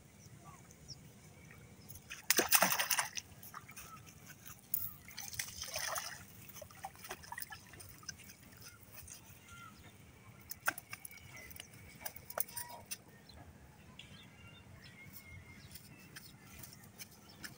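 A hooked fish thrashing and splashing at the water's surface as it is pulled in on a bamboo fishing pole. There are two loud splashes, about two and five seconds in, then scattered small clicks.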